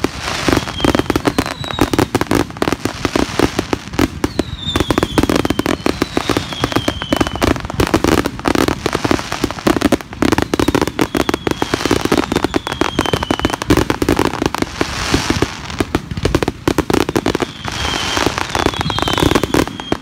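Fireworks going off in rapid, continuous bangs and crackles, with several short falling whistles from whistling fireworks.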